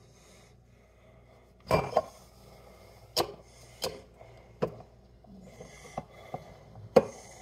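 Handling of a stainless-steel cocktail shaker: about seven separate knocks and clinks, irregularly spaced, the loudest about two seconds in and another near the end, not the steady rattle of shaking.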